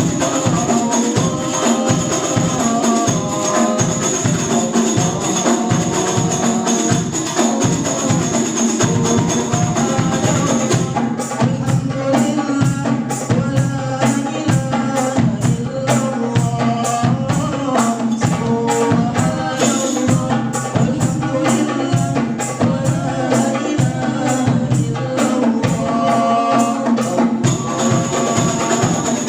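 Sholawat music: hand-struck frame drums and tambourine keeping a quick, steady beat under a melody. The high jingling shimmer drops out through the middle stretch and returns near the end.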